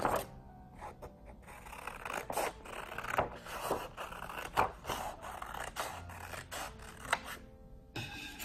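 Scissors cutting through a sheet of A4 paper along its fold: a series of crisp snips and paper rustles.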